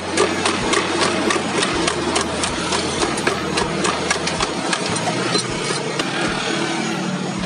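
Wire whisk beating thin martabak batter in a plastic bucket, clicking against the bucket wall about three times a second over a steady background din.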